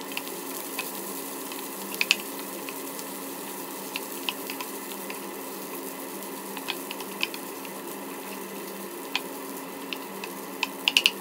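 Fried rice sizzling in a nonstick frying pan while a wooden spatula stirs and turns it. Scattered clicks and scrapes of the spatula on the pan, with a quick run of taps near the end.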